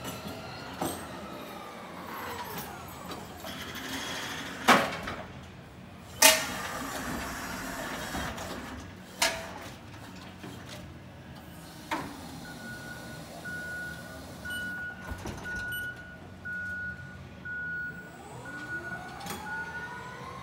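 A forklift with a Roloader conveyor attachment working in the aisle. Its motor whines, rising and falling in pitch, and there are several sharp clanks, the loudest about five and six seconds in. From about halfway, a reversing alarm beeps steadily, about once a second.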